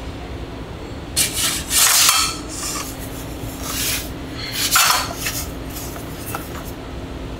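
Rasping, scraping strokes during kitchen work, loudest in two bursts about a second in and near five seconds in, with lighter scrapes between, over a steady low hum.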